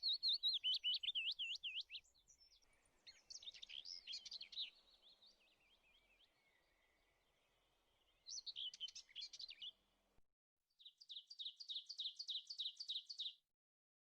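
Birdsong: a quick up-and-down whistled phrase repeated for about two seconds, then bouts of warbling, and near the end a fast even trill of about five notes a second that cuts off abruptly.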